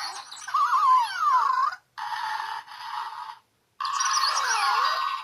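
Zhu Zhu Pet robotic toy hamster playing its electronic squeaks and chirps, wavering and gliding up and down in pitch over a steady hiss. It cuts out twice briefly, about two seconds in and again past the middle.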